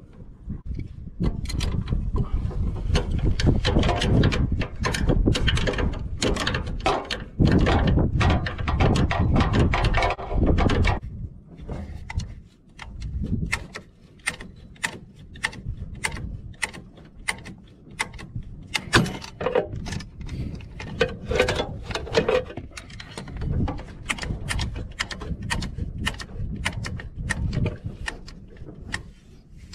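Hand tools on a garden tractor's belt pulleys and idler: irregular sharp metallic clicks and knocks in quick runs, with a low rumble through the first ten seconds or so.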